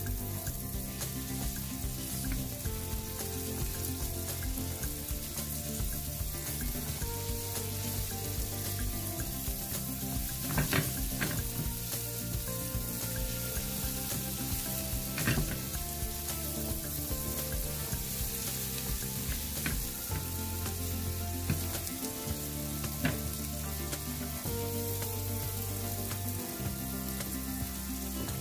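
Sliced shallots and garlic sizzling in hot margarine in a nonstick frying pan, stirred with a plastic spatula that now and then knocks against the pan. Low background music plays underneath.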